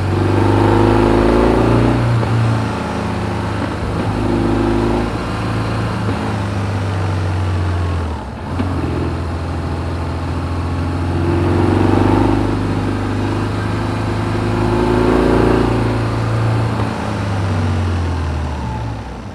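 BMW R1200GS boxer twin running through its stock exhaust while riding, the engine note rising and falling as the throttle is opened and rolled off several times, with a brief drop about eight seconds in.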